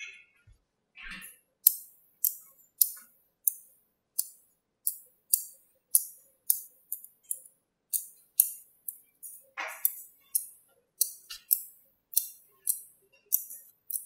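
Small magnetic balls snapping together with sharp metallic clicks, about two a second, as clusters are pressed onto a ball-shaped magnet build. About ten seconds in there is a brief rattle of balls shifting against each other.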